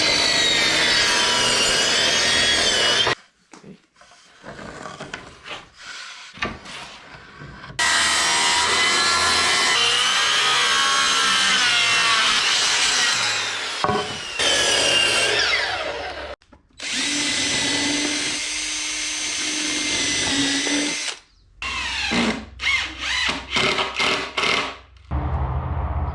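Power drill running in several separate stretches, its motor whine gliding up and down in pitch, with sudden cuts between them.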